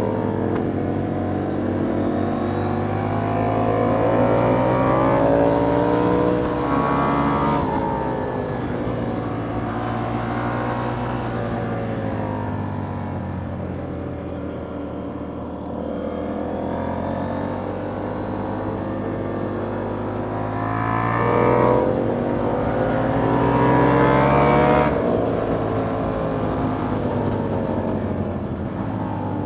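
2021 KTM Duke 890R's parallel-twin engine through a catless Austin Racing GP1R exhaust, ridden hard: the revs rise and fall, with two long climbs that each end in a sudden drop, a quarter of the way in and again near the end.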